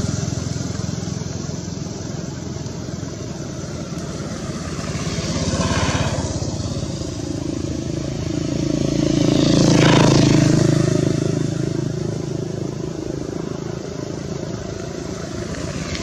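Engines of passing road vehicles, swelling and fading twice, loudest about ten seconds in.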